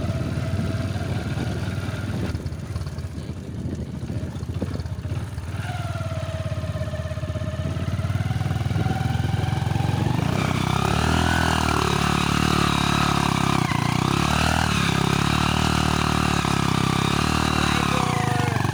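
Hero Honda single-cylinder four-stroke motorcycle engine running while the bike is ridden, with wind rumble on the microphone. About ten seconds in, the engine note rises and gets louder as the bike accelerates.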